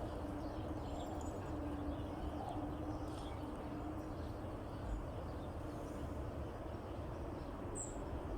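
Faint steady background noise with a low hum, and a few faint, short high chirps scattered through it.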